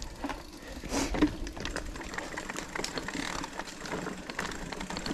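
Mountain bike's freewheel hub ticking, with irregular clicks and rattles from the bike over rough ground.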